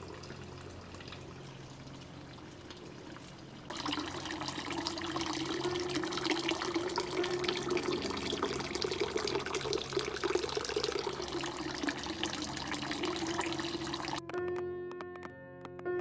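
Running water, entering about four seconds in and cutting off suddenly near the end, over soft background music with sustained tones.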